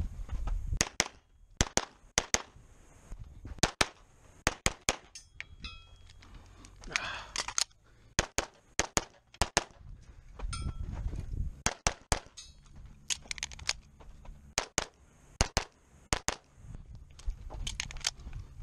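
A string of 9mm pistol shots from a CZ SP-01 Shadow Target Custom, mostly fired in quick pairs a fraction of a second apart, with short breaks between groups as the shooter works through a timed USPSA stage after the start beep.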